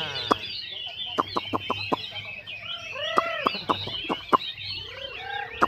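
A dense chorus of many caged songbirds calling at once: overlapping high chirps and trills, cut through by repeated sharp call notes and a few lower arching calls.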